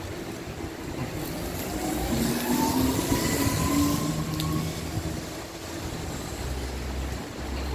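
Steady hiss of heavy rain on a wet city street. A vehicle passes on the wet road about two seconds in, its engine note rising in pitch as the sound swells, then fades into a low rumble.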